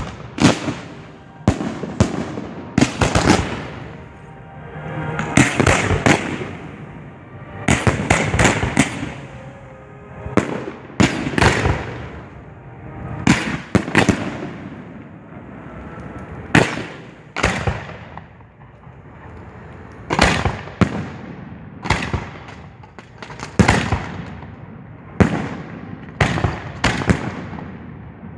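Professional display fireworks firing at close range: a rapid series of sharp bangs, often several in quick succession, coming about every second throughout.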